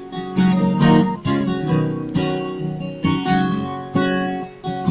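Acoustic guitar being strummed in a steady rhythm, chords struck a little under a second apart, with no singing.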